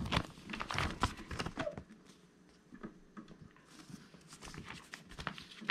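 Sheets of printed paper rustling and crackling as they are handled and turned over.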